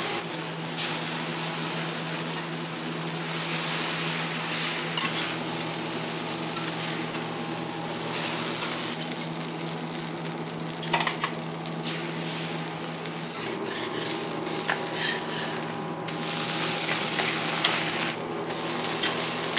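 Noodles and batter sizzling steadily on a hot flat iron teppan griddle, as metal spatulas scrape, toss and press them, with a few sharp metal clicks on the plate. A steady low hum runs underneath.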